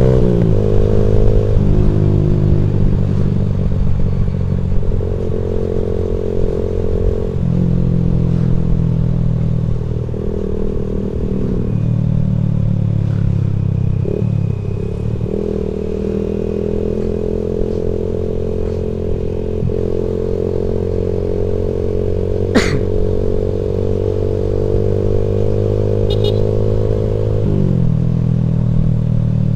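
Vehicle engine accelerating hard through the gears: its pitch climbs, then drops back at each shift, about half a dozen times. A single sharp click comes about three-quarters of the way through.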